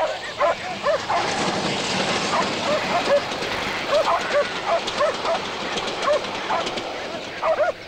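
A dog barking again and again, short sharp barks about twice a second, while sheep are worked in a stockyard pen. A steady rushing noise runs under the barks for the first few seconds.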